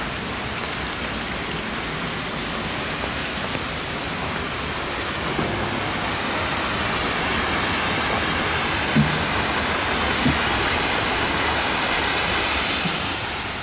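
Steady rush of flowing river water, growing a little louder past the middle. Two soft low thumps sound close together near the end.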